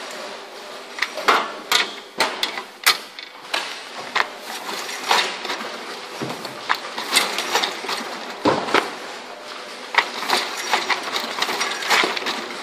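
FLATWRAP Joyner X newspaper film-wrapping machine at work while newspapers are handled and fed into its metal feed tray: irregular clicks and clacks of the mechanism and tray, mixed with rustling paper.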